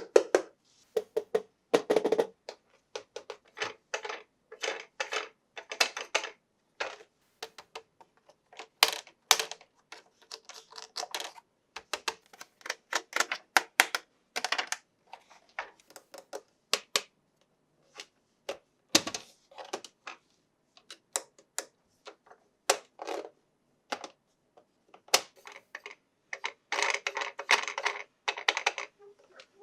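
Hands handling toy packaging and hard plastic toy parts, making irregular clicks and taps. A longer stretch of rustling comes near the end.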